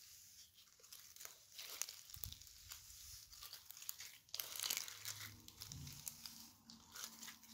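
Glossy slime being stretched and squeezed by hand: a quiet, wet crackle of many small clicks and pops as the slime pulls apart and air pockets open, louder for a stretch about halfway through.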